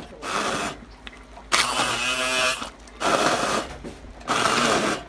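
Handheld immersion blender pureeing chunks of cauliflower and celery in a pot of broth, run in four bursts of about a second each with short pauses between.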